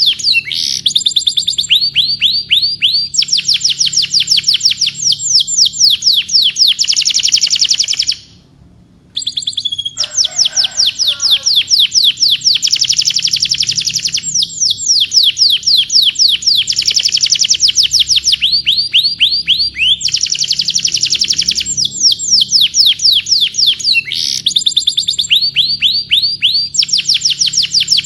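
Domestic canary singing: long, fast trills of rapidly repeated high notes, one trill running into the next, with a brief pause about eight seconds in.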